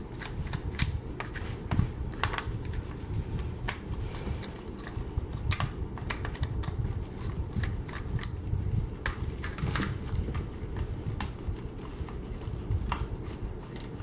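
Scattered small clicks and scrapes of a screwdriver working rusty, stripped screws out of an old plastic power strip housing, over a steady low rumble.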